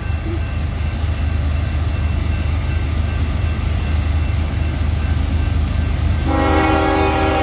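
Freight train diesel locomotives working up a grade, a steady low engine drone with wheel and rail noise. About six seconds in, a multi-chime locomotive air horn starts and holds a steady chord.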